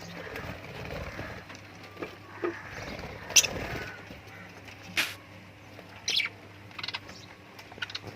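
Lovebirds giving short, sharp, high chirps, about half a dozen scattered through, the loudest about three and a half seconds in.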